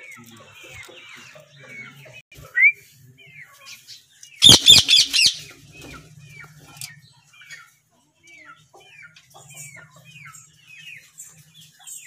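Indian ringneck parakeets calling: a steady run of short chirps, a single loud call about two and a half seconds in, and a burst of about five loud calls in quick succession around four and a half seconds in.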